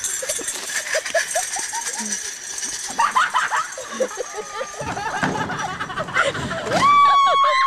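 People laughing and whooping in short bursts, with a long high held yell near the end.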